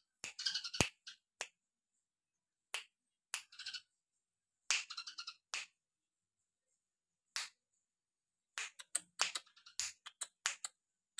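Caged songbird giving short, sharp chip notes and clicks, scattered singly at first and coming in quick clusters near the end, between bursts of rattling song.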